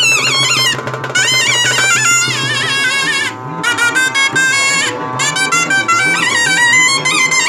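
Instrumental background music with a wind-instrument melody that bends and wavers in pitch over a steady held drone.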